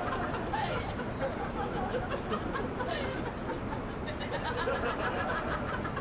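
People talking and chuckling over steady background noise.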